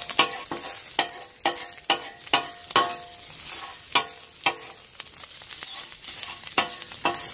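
Chef's knife chopping turkey bacon on a steel griddle top: the blade strikes the plate with a ringing clack about twice a second, with a short pause after the middle. The bacon sizzles underneath.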